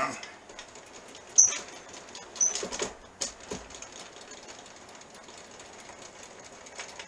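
A few sharp clicks and light taps from handling parts on a metal machine table, the loudest about a second and a half in. Two brief high chirps come about a second apart, and the rest is quiet.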